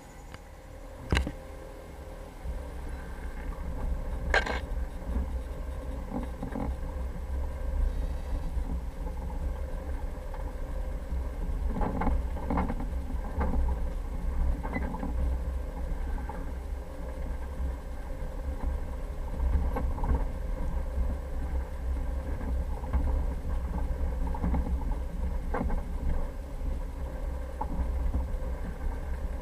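Jeep Cherokee driving off-road: a steady low rumble with scattered knocks and rattles from the rough ground, one sharp knock about a second in.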